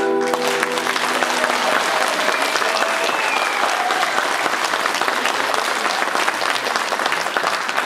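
Audience applauding as the dance music ends, its last notes dying away in the first half-second.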